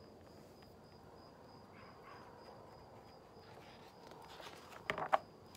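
Faint, steady cricket trill. Near the end comes a brief rustle and flap of a large picture-book page being turned.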